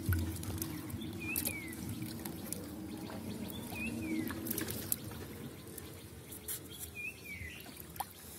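Water trickling and dripping, with small splashes and scattered light clicks, as fish are picked out of a wet cast net at the water's edge.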